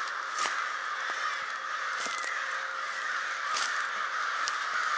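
A large flock of crows, about a hundred, cawing all at once in a dense, continuous din of overlapping caws. They are agitated over something, which the camper guesses may be a carcass they have found.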